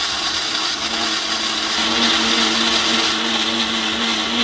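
Indian mixer grinder (mixie) running steadily, its steel jar grinding sautéed onions, dried red chillies and tamarind into a thick chutney paste. The motor hum rises slightly in pitch about halfway through.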